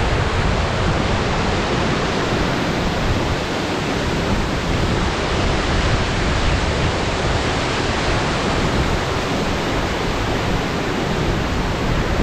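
Waterfall rushing steadily, a loud, even noise of falling water swollen by recent rain.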